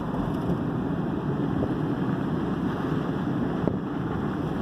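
Steady rumble of a car driving on a snowy street, with tyre and engine noise heard from inside the cabin.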